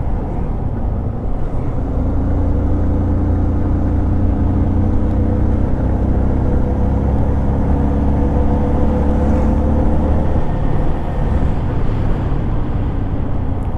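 Motorcycle ride: engine running with road and wind noise, and a deeper steady engine drone from about two seconds in until about ten seconds in.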